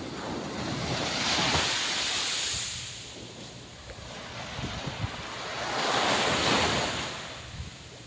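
Small waves breaking and washing up a sandy shore, two surges about five seconds apart, with wind buffeting the microphone.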